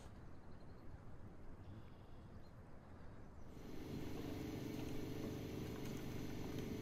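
Faint low outdoor rumble, then about halfway through a samovar at the boil comes in: steady steam hissing with a low humming tone.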